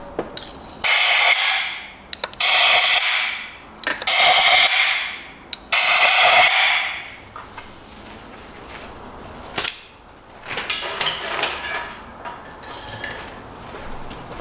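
Compressed-air blow gun blasting into the spark plug wells in four short hissing bursts of about a second each, clearing dirt before the spark plugs are removed. A sharp click and some light rattling follow.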